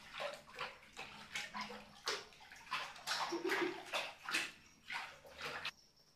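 Water splashing in a small pool as a baby monkey plays in it: quick irregular splashes, about three a second, that stop shortly before the end.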